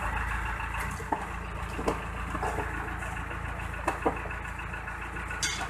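A heavy vehicle's engine idling steadily, with a few light knocks about one, two and four seconds in.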